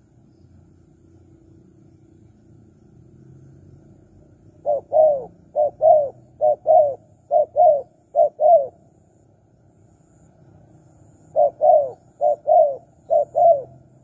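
Spotted dove cooing in two bouts of paired coos, each pair a short note followed by a longer one: four pairs, then after a pause three more.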